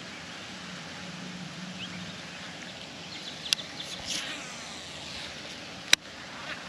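Steady hum of distant road traffic under wind noise, with two sharp clicks about two and a half seconds apart, the second one louder.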